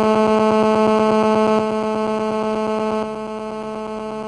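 A loud, steady electrical buzz at one constant pitch, dropping a little in level twice, with no speech over it: a hum in the sound system or recording chain.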